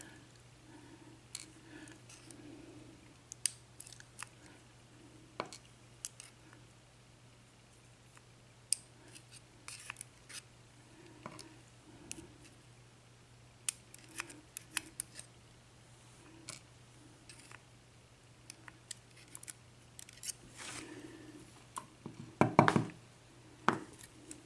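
Small metal lock parts being handled: scattered sharp clicks and taps as top pins and springs are worked out of a pin-tumbler lock's cylinder housing and set down, with a louder cluster of knocks near the end.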